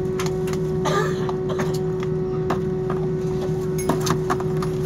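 Jet airliner cabin while taxiing: a steady engine hum with a constant tone, and scattered clicks and knocks as the cabin rattles over the taxiway.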